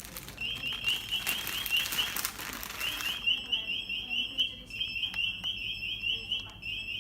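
Anti-theft EAS security gate alarm beeping in rapid high chirps, about five a second, in bursts with short breaks, signalling a detected tag. A rustling noise runs under the first three seconds.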